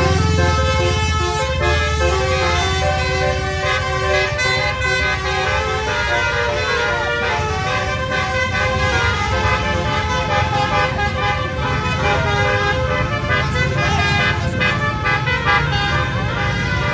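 Musical multi-tone air horns (telolet) playing stepping tunes, with a few sliding tones, over the steady low rumble of idling diesel engines.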